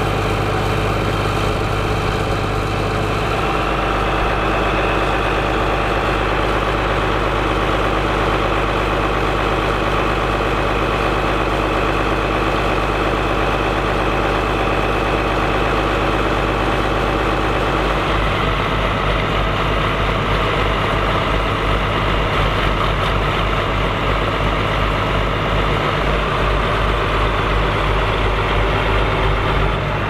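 Big tractor diesel engines running steadily at idle, led by a County 1184 TW four-wheel-drive tractor. About a third of the way in a second tractor's engine joins close by, adding a throbbing low beat.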